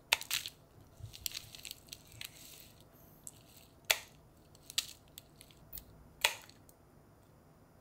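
Scissors snipping through the woody stems of fresh conifer branches: a few sharp cuts spaced a second or two apart, with crinkling and rustling between them.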